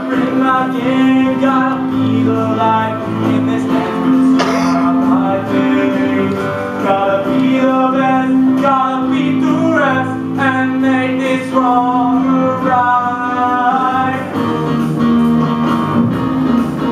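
A song from a stage musical: a singer over instrumental accompaniment with guitar. The voice stops about fourteen seconds in and the accompaniment carries on.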